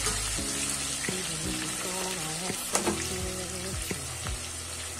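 Sliced onions sizzling as they fry in hot oil in a stainless steel pot, stirred with a utensil, with a few sharp clinks a little past halfway.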